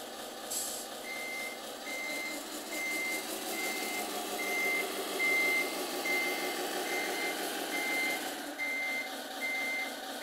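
Servonaut sound module in a Tamiya Scania RC truck playing a reversing beeper, short beeps at one pitch about every two-thirds of a second, starting about a second in, over its simulated V8 engine running.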